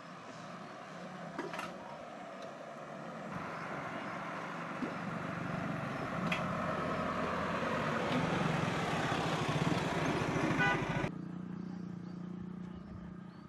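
An Isuzu light truck's engine and tyres on an ash-covered dirt road, growing louder as the truck comes closer, then cut off suddenly. After that comes a steadier, quieter motorcycle engine hum.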